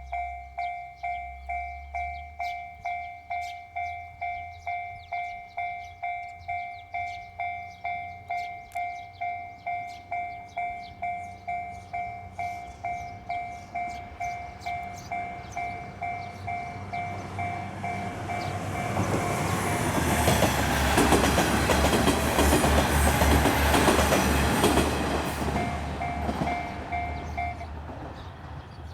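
Japanese level-crossing warning bell ringing steadily at about two strikes a second. A diesel train builds up and passes from about two-thirds of the way in, with its wheels thumping rhythmically over the rail joints. The bell stops shortly before the end as the crossing clears.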